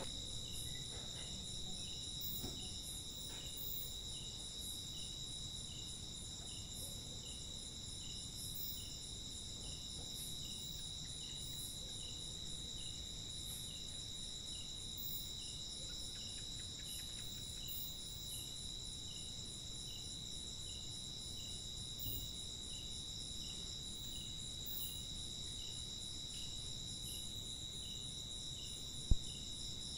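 Crickets trilling: several steady high-pitched trills over one another, with a softer chirp repeating under them. A single sharp click near the end.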